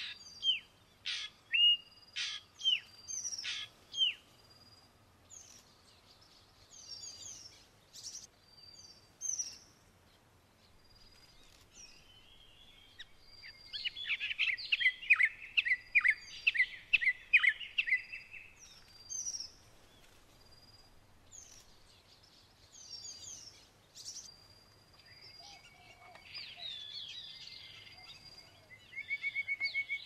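Several wild birds calling and singing. There are sharp whistled calls in the first few seconds, a loud fast run of notes from about 13 to 18 seconds in, and a short high note that repeats every second or two throughout.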